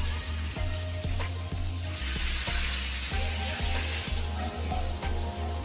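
Water spraying from an ultra-slim stainless steel rain shower head in a steady hiss, with background music playing under it.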